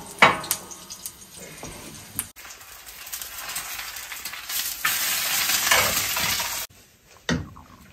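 Hot oil sizzling in a frying pan as food fries, with a few utensil clicks against the pan at first. The sizzle starts about two seconds in, swells, then cuts off suddenly, and a single knock follows near the end.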